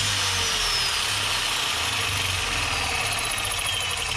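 Electric drill with a masonry bit boring into brick. The motor whine sinks slowly in pitch under load, and a rapid rattling sets in near the end.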